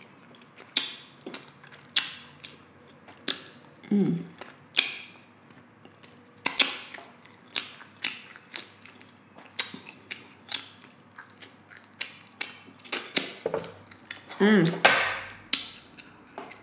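Close-miked eating of glazed pork ribs: irregular sharp wet mouth clicks and lip smacks, one or two a second, with a short hummed vocal sound twice, about four seconds in and near the end.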